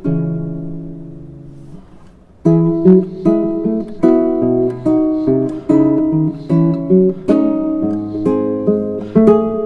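Background music on plucked guitar. A chord rings out and fades for about two seconds, then a steady run of picked notes follows.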